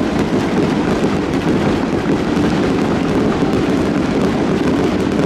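Aerial fireworks shells bursting one after another overhead, a continuous dense mix of booms and crackle with no pause between them.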